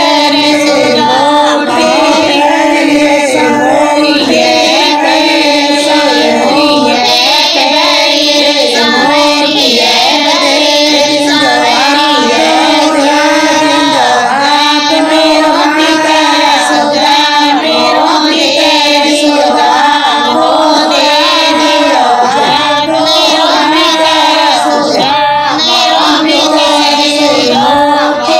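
Bagri folk bhajan: a singer's voice carrying a continuous melody over a steady held drone and musical backing.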